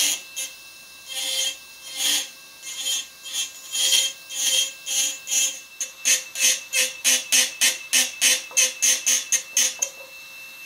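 Rotary carving handpiece with a small burr grinding musk ox horn in short, quick strokes: a rasping scrape on each stroke over the tool's faint steady whine. The strokes come about twice a second at first and speed up to about four a second from the middle on.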